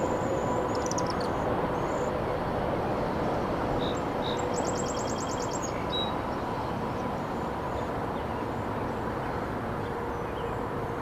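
Steady outdoor rushing noise with a faint steady hum under it, and a small bird calling: a few chirps about half a second in, then a short rapid trill about four and a half seconds in.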